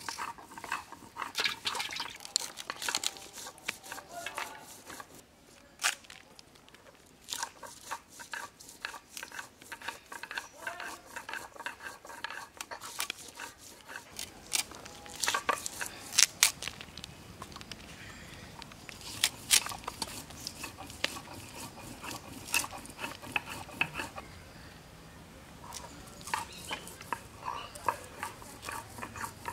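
Vegetables being cut on a bonti, a curved blade fixed upright. Crisp scraping and snapping clicks come first as a raw potato is peeled, then, about halfway, as cauliflower is cut and its florets broken apart.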